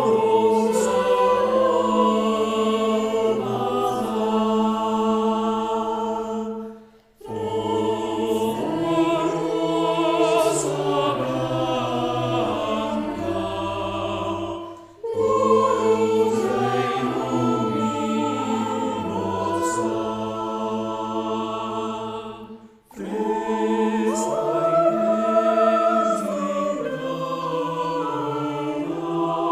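Mixed a cappella choir of sopranos, mezzo-sopranos, tenors and baritones singing slow, sustained chords. The chords come in phrases of about seven seconds, with a brief pause between each.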